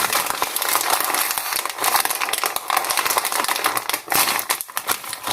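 Crinkling and rustling of a Popcorners chip bag as it is handled and opened, a dense crackle that carries on throughout.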